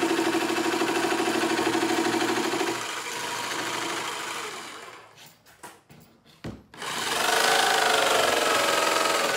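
Jigsaw cutting slots into 3-inch PVC pipe, the blade buzzing steadily. It cuts out about five seconds in, with a few short blips, and runs again about two seconds later.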